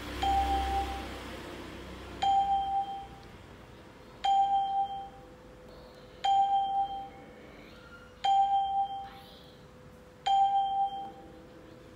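Flash mental-arithmetic program on a laptop sounding a short electronic chime about every two seconds, one for each number flashed on screen for the child to add. Six identical chimes, each ringing briefly and dying away.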